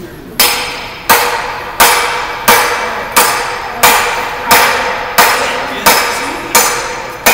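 Dead blow hammer striking a steel bearing installer tool in a steady rhythm of about eleven even blows, roughly three every two seconds. Each blow is a sharp knock with a short metallic ring. The blows are driving the bearing onto the input shaft of an Eaton Fuller 10-speed manual transmission.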